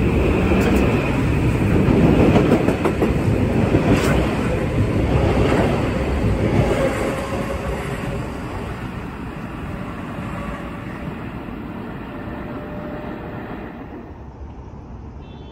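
Metro-North M8 electric multiple-unit train running past and pulling away, its wheels rumbling with a few sharp clicks over the rails. The sound fades steadily as the train recedes.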